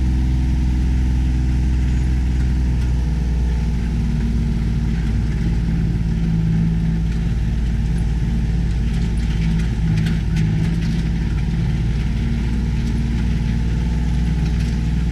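Vehicle engine running steadily at even revs, with a few light clicks and rattles about ten seconds in.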